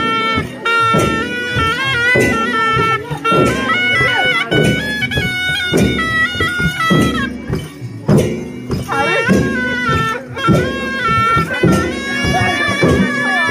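Nepali wedding band (panche baja): sahanai (shehnai) reed pipes playing a loud, nasal melody that moves in distinct stepped notes, over frequent strokes on a two-headed dholaki drum.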